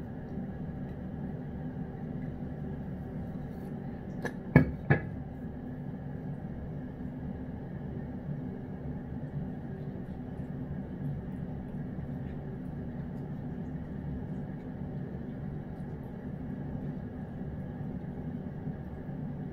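Steady low mechanical hum, with a quick cluster of three sharp clicks about four and a half seconds in.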